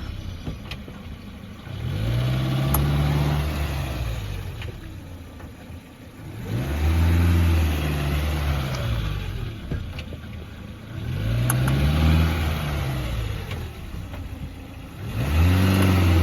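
Renault Clio II engine revved and let fall back to idle four times, each rev rising and falling in pitch over about two seconds, to show a noise from the left side of the car whose cause the owner does not know.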